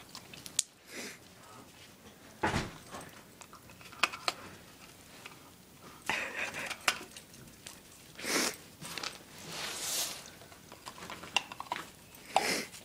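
Dog biting and chewing an icicle: irregular crunches and clinks of ice breaking between its teeth.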